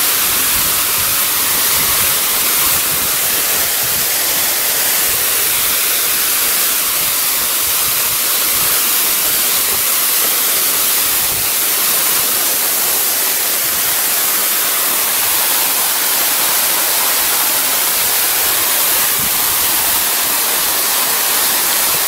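Multi-tiered waterfall cascading over rock: a steady rush of falling water.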